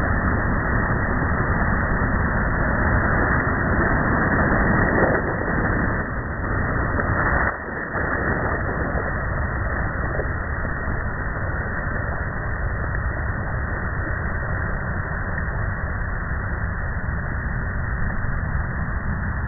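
Ocean surf breaking on a sandy beach: a continuous rush of waves that swells louder a few seconds in and eases briefly near the middle.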